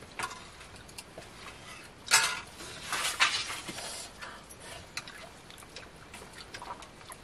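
Metal ladle clinking and scraping against a metal wok and cooking pot, with scattered short clatters, the loudest about two seconds in.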